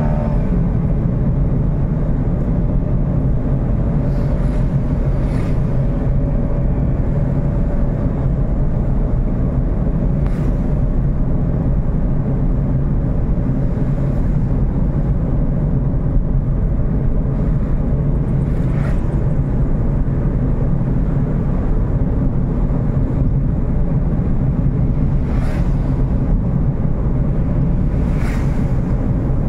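Steady drone of a moving vehicle's engine with road and wind noise while driving, its engine pitch climbing briefly at the very start.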